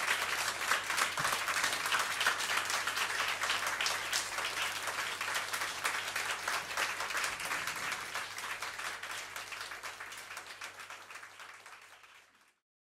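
A small audience applauding, with dense, fast hand-clapping that slowly fades away over the last few seconds and then cuts off.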